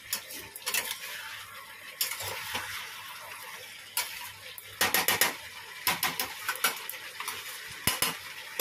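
A spatula stirring and scraping fish heads and potatoes around a stainless steel kadai, with a light sizzle and clusters of clinks against the pan, the busiest about five seconds in. The spice paste is braising in a splash of hot water added so it would not stick.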